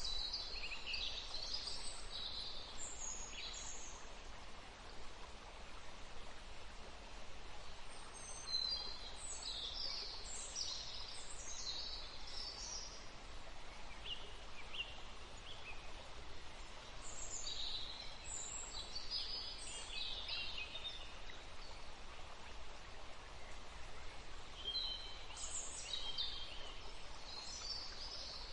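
Forest ambience: a small stream flowing steadily, with songbirds chirping in several short bouts of high, quick notes.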